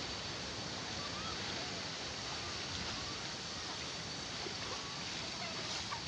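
Steady rush of stream water cascading over rocks and spilling over a pool's concrete edge.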